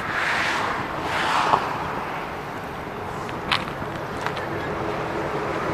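Highway traffic going by, a rushing noise that swells twice in the first second and a half and then eases off, with a couple of sharp clicks a little past halfway.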